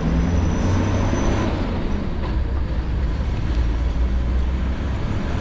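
Steady road noise and engine rumble of a moving vehicle, with a deep low rumble underneath.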